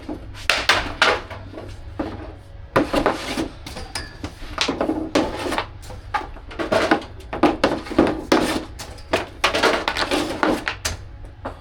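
Ice hockey practice on the ice: skate blades scraping and a stick and puck knocking, in irregular bursts about twice a second over a steady low hum.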